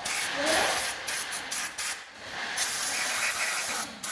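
Aerosol brake cleaner spraying onto the brake caliper and its bracket to wash out dust and debris before new pads go in. It is a steady hiss, broken briefly about two seconds in, that stops near the end.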